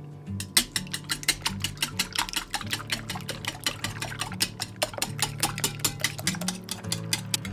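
Wire whisk beating raw eggs in a ceramic bowl, its wires clicking against the bowl in a fast, steady rhythm of about seven strokes a second, starting just after the beginning.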